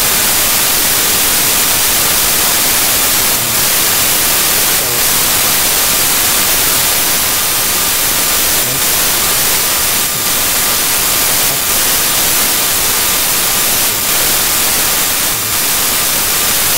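Loud, steady static hiss like white noise, with brief slight dips now and then and a faint thin whistle underneath: garbled noise from a corrupted end of the recording.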